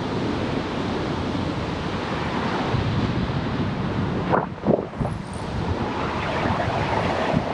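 Steady wind rushing over a GoPro's microphone on a moving bicycle, with a couple of brief thumps about four and a half seconds in.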